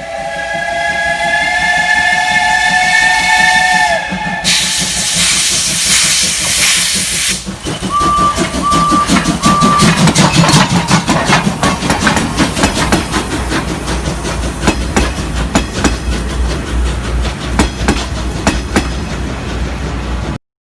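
Steam train sound effect: a long chime whistle blast that sags in pitch as it ends, then a loud hiss of released steam for about three seconds. Three short high toots follow, then a long run of rapid knocks over a low rumble as the train gets under way. It cuts off suddenly near the end.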